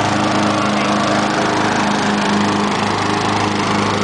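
Riding lawnmower engine running at a steady speed, with an even drone.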